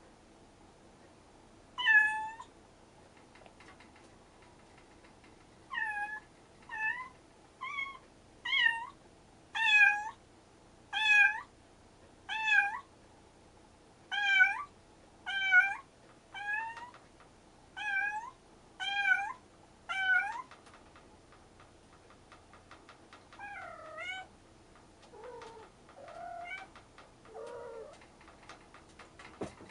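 Two cats meowing to each other: one high meow, then a run of about fifteen high meows roughly one a second, then a few lower, quieter meows near the end. A short knock just at the end.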